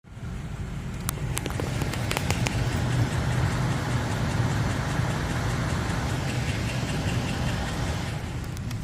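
Car engine idling with a steady low hum, with a few sharp clicks in the first couple of seconds.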